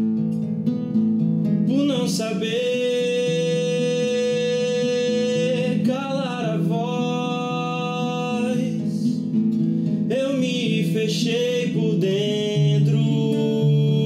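Acoustic guitar being picked, joined about two seconds in by a man singing long held notes that slide between phrases.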